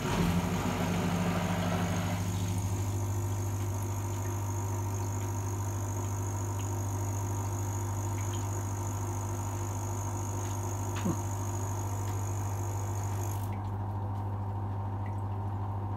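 BRUMAS BrauEule III brewing machine switching on and running with a steady electric hum, its pump circulating the water in the kettle as it heats up for mashing in. A high whine over the hum cuts off suddenly about 13 seconds in.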